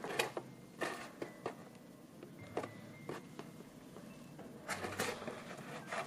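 Cardboard toy box handled and turned over in the hands: scattered taps, knocks and scrapes of cardboard, with a cluster of louder knocks about five seconds in.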